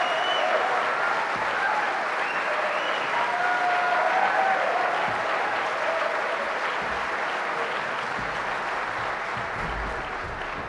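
Audience applauding steadily after a barbershop quartet's set, with a few voices calling out over it in the first half; the applause dies down slowly toward the end.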